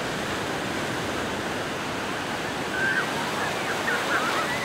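Surf washing steadily onto a sandy beach, with faint calls of beachgoers rising over it about three seconds in.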